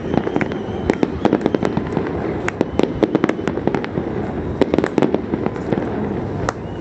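Fireworks going off: many sharp bangs and crackles of bursting shells in quick, irregular succession over a steady rumble.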